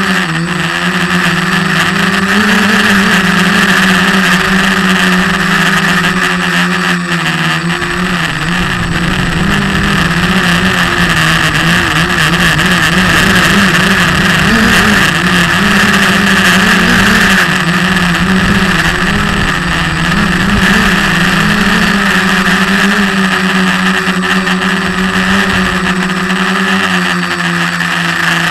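SK450 quadcopter's brushless motors and propellers buzzing, heard from a camera mounted on the frame. The pitch wavers as the motors speed up and slow down, with a low rumble through the middle.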